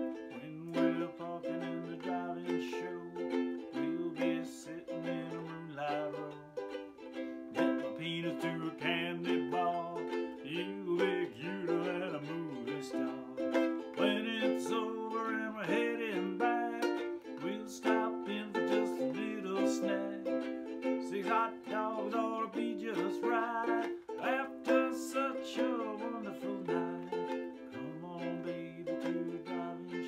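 A man singing to his own strummed ukulele, steady chords under a wavering vocal line.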